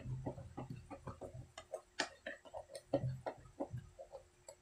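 A spoon clicking and scraping against a plastic bowl while stirring a wet rice-flour batter: a quick, irregular run of light ticks.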